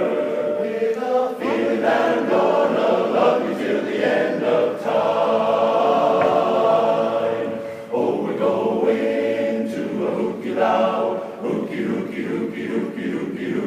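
A cappella chorus singing sustained chords in close harmony, with a brief dip about eight seconds in.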